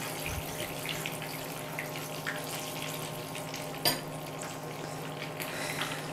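Whole peppers frying in hot oil in a pan: a steady sizzle with scattered small pops and crackles from water left on the peppers, over a steady low hum. One sharp clink about four seconds in, as a metal fork is set down in a ceramic bowl.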